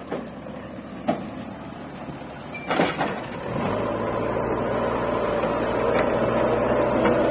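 JCB backhoe loader's diesel engine running, with two sharp knocks in the first three seconds. About three and a half seconds in, the engine note steps up louder and holds steady.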